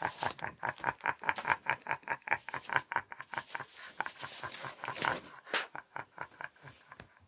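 A man's long, theatrical villain's laugh: rapid "ha-ha" pulses at about five a second, a breathy stretch near the end, then dying away.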